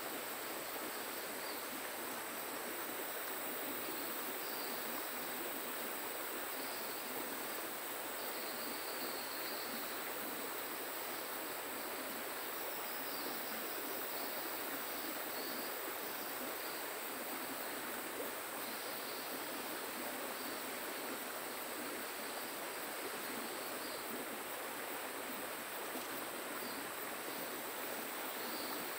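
Steady riverside ambience: an even rush of flowing river water under a continuous high insect drone, with faint scattered chirps now and then.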